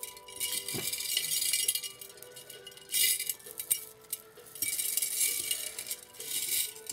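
A hand rummaging through a glass jar of beads and pearl trims: rattling and clinking in three bursts, over faint background music.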